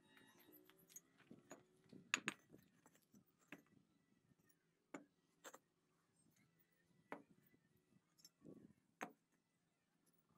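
Faint, scattered knocks and clinks of fired clay bricks being set down on hard ground and against each other, about seven separate strikes, the loudest a close pair about two seconds in.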